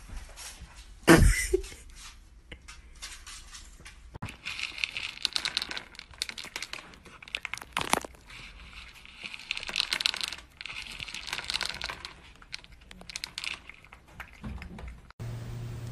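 A single loud thump about a second in, then a cat crunching dry kibble from a bowl: a long run of crisp, rapid crunches and clicks.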